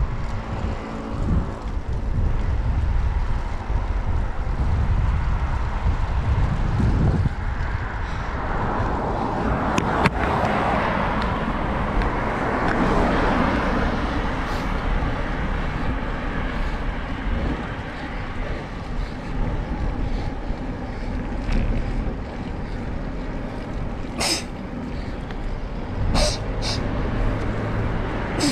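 Wind buffeting and road noise on a handlebar-mounted camera as a road bike rides along a mountain road, with a car passing about midway. A few sharp clicks near the end.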